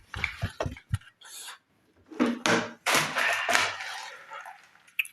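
Crisp packaged chips crunching close to the microphone: a few sharp clicks, a short pause, then about two seconds of dense crunching.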